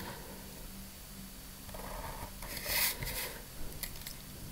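Faint pen strokes on paper along a plastic ruler, with the ruler shifted across the sheet and a brief louder scrape about three seconds in, over a low steady hum.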